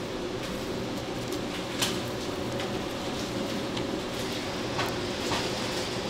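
Steady hum of shop machinery with a low drone, overlaid by small clicks and sticky handling noises from rubber-gloved hands working rice-cake dough, the sharpest click about two seconds in.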